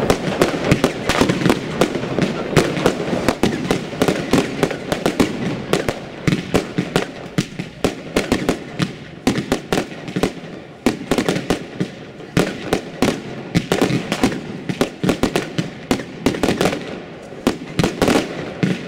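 Aerial fireworks bursting in rapid succession: a dense, unbroken string of bangs and crackles, several a second.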